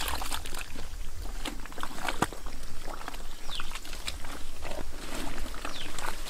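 Irregular wet slaps, clicks and knocks of mud being worked by hand during mud fishing, with two brief high falling squeaks and a low rumble at the start and again near the end.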